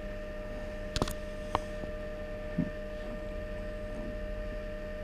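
Steady electrical hum of a running egg incubator, with two faint clicks about a second in and half a second later.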